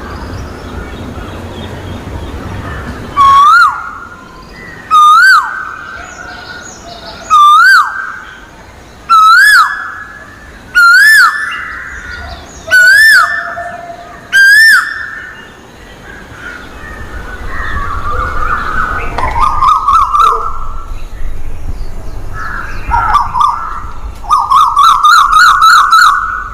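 Asian koel (koyal) calling: seven loud swooping notes about every second and a half, each a little higher than the last. Softer calls follow, and near the end comes a fast run of short repeated notes.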